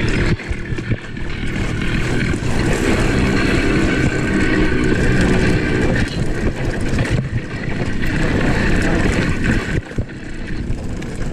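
Wind rushing over the microphone of a rider-mounted camera as a mountain bike descends at speed, with constant rattling and knocking from the bike over rough ground.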